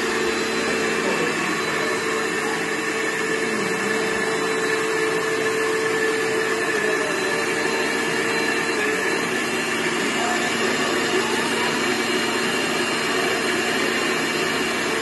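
Electric mixer-grinder with a steel jar running steadily at one speed, a loud whirring over a constant motor hum.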